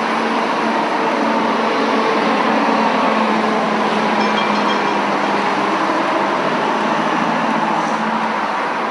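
City street traffic: a steady rumble of vehicles with a steady engine hum running under it that fades out near the end.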